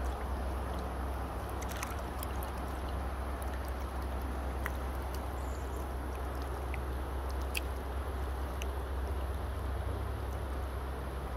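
River water flowing and lapping close to the microphone, with small scattered splashes and drips over a steady low rumble.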